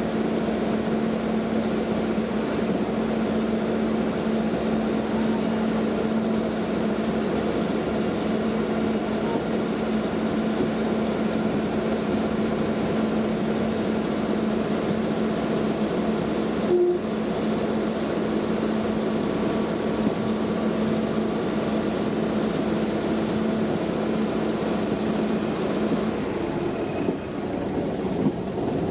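Indian Railways WRB-1 diesel railbus running at a steady pace, heard on board: a constant drone with a steady low hum. There is a short click-like break about midway.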